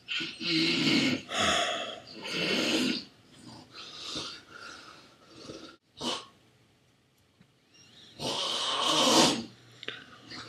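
A man snoring loudly in irregular noisy snores: three quick ones in the first three seconds, a few smaller ones after, a short sharp one about six seconds in, and a long, loud snore near the end.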